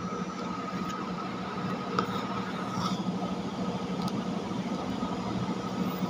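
Steady hum of room machinery, with faint pen strokes on paper and a light tap about two seconds in.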